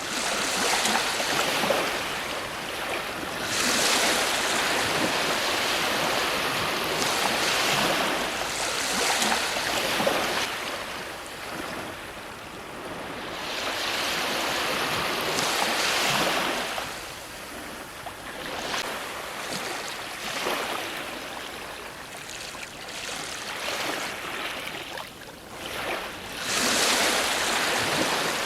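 Ocean surf breaking on a shore: a steady rush of water that swells into louder crashes and falls back every few seconds.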